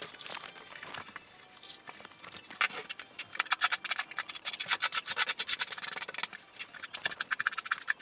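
Trowel scraping and spreading thinset mortar on the floor in quick, repeated strokes, starting about two and a half seconds in.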